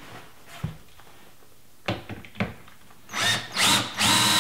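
Cordless drill driving a screw through a pre-drilled board into the wall. A few light knocks, then about three seconds in the motor whines in short trigger bursts, the last one longer.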